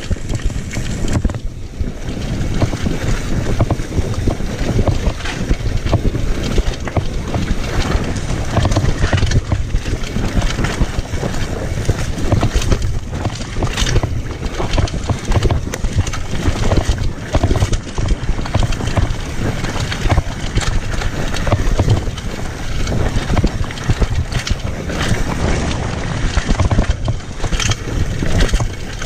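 Mountain bike ridden fast down a dirt singletrack: steady wind rushing over the camera's microphone, with the bike and tyres knocking and rattling over bumps in the trail.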